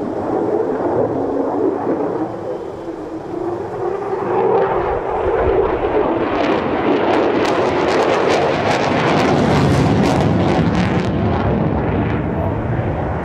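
Lockheed Martin F-35A's single afterburning turbofan running loud as the jet passes, with a swelling roar from about four seconds in and a harsh crackle from about six to eleven seconds, afterburner lit.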